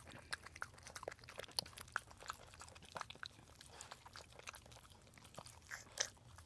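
A dachshund licking and mouthing a wet newborn puppy to clean it just after whelping: soft, irregular wet smacks and clicks, with a sharper click about six seconds in.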